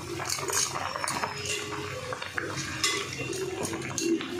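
Cut eggplant pieces dropped and pushed by hand into a pan of simmering gravy, with scattered light clicks and knocks.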